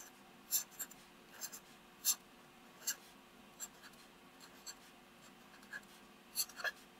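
Felt-tip marker writing on paper: a string of short, quick, scratchy strokes at an irregular pace as letters are formed, over a faint steady hum.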